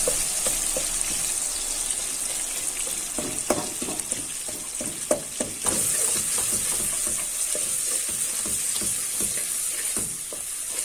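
Sliced onions sizzling in hot oil in a pot, stirred briskly with a wooden spatula that makes frequent scrapes and taps against the pan.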